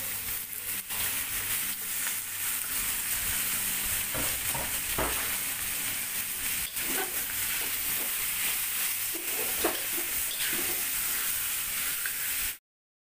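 Monitor lizard meat sizzling in hot oil and spice paste in a steel wok, with a metal spatula knocking and scraping against the pan as it is stirred. The sizzle cuts off suddenly near the end.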